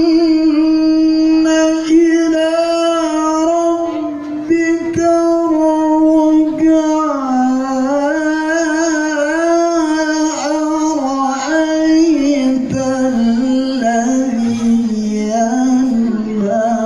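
A qari reciting the Quran in the melodic tilawah style: one voice holding long, ornamented notes that wind up and down, settling into a lower pitch about halfway through.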